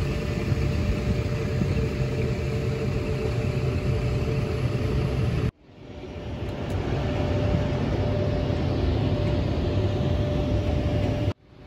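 Steady rumble of an airport shuttle bus driving, with a faint steady whine over it. The sound cuts out abruptly about halfway through and swells back up, then cuts again near the end.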